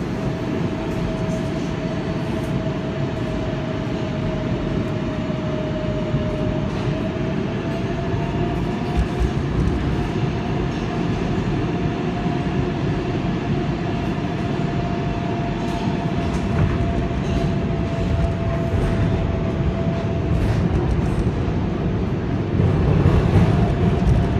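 R188 subway train running through a tunnel, heard from on board: a steady rumble of wheels on rail with a whine that rises slightly in pitch about a third of the way in and then holds. Scattered clicks run through it, and it grows louder near the end.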